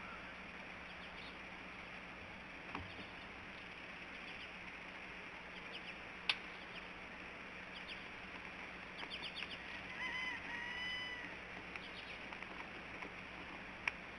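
A bird gives two short nasal, honking calls about ten seconds in, the second held for about a second. Under them is a steady background hiss and a few sharp clicks; the loudest clicks come about six seconds in and just before the end.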